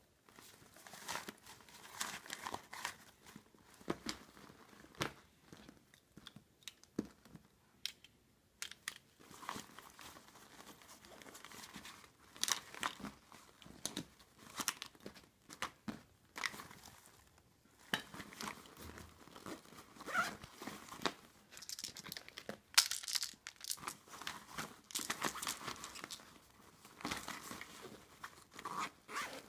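A PU leather handbag being handled and rummaged through, with items taken out and set down on a table: irregular rustling and crinkling of the bag's material, broken by many small clicks and knocks of objects being put down.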